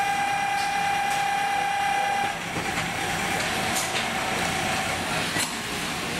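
Factory floor noise: a steady machine whine over a constant hiss and hum. The whine is strong for about the first two seconds, then drops to a faint tone, with a few sharp clicks.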